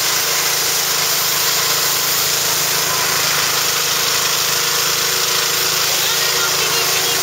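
Gas-engine pressure washer running steadily, with the hiss of its water jet spraying onto the pavement and tarps.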